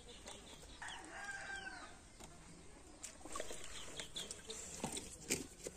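Chickens clucking, with one drawn-out call lasting about a second near the start, over light taps and scrapes of fish pieces being handled.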